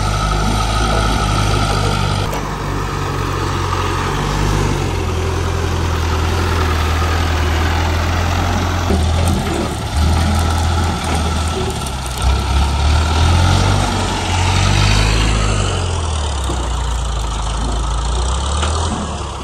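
Hydra mobile crane's diesel engine running, its speed rising and falling several times, with a steady whine over it that stops about two seconds in.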